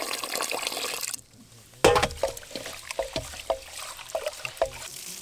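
Water pouring into a rice cooker's inner pot, stopping about a second in. Then rice being washed by hand in the water: a loud first splash, followed by irregular short swishes and splashes.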